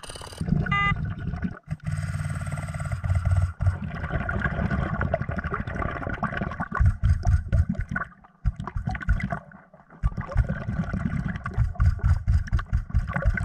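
Underwater sound of a diver breathing through a regulator: exhaled bubbles rumble in repeated bursts, with a couple of short lulls about eight and ten seconds in.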